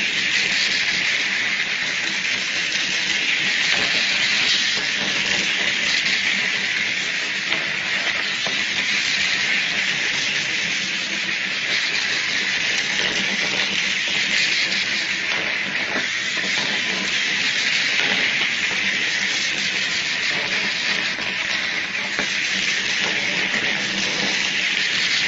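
Small line-following robots' gear motors whirring, a steady high hiss-like whir that keeps going as the robots run the track.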